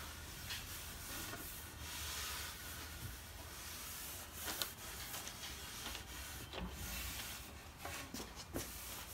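Cotton rag wiping over a wooden board freshly coated with wipe-on oil-varnish finish, a soft rubbing swish stroke after stroke, during the final wipe-off of excess finish. A few light taps, the sharpest about four and a half seconds in.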